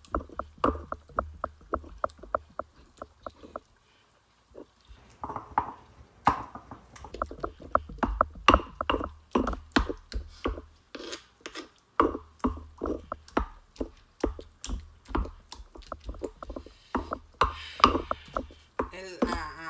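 Stone pestle pounding and grinding roasted tomato and chile salsa in a stone molcajete: quick, rhythmic knocks, about five a second, with a brief pause about four seconds in.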